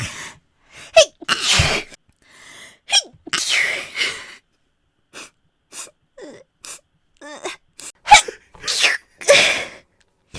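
A woman sneezing, about four sneezes, each led by a short catch of breath, with a quieter pause between the second and third.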